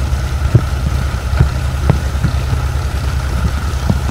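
Diesel engine idling steadily, with a few sharp knocks over it.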